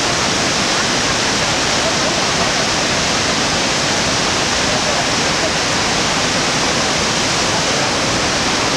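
Iguazu Falls: a great volume of water pouring over the cliffs into the gorge, heard as a loud, steady rush without any break.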